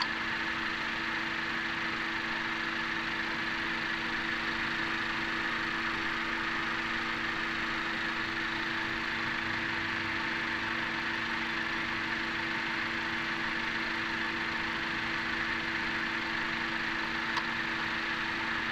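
Honda Accord four-cylinder engine idling steadily and evenly, with no pinging or knock heard now that the carbon deposits in its combustion chambers have been cleaned out.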